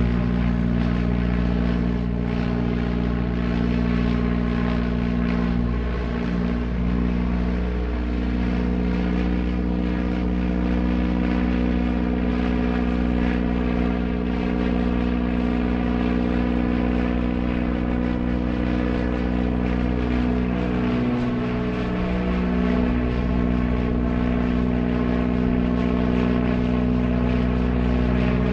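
Single-engine propeller airplane engine running steadily, its note wavering slightly twice.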